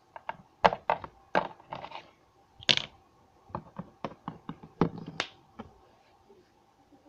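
Small plastic toys and playset parts being handled and knocked together: a run of light taps and clicks at irregular spacing.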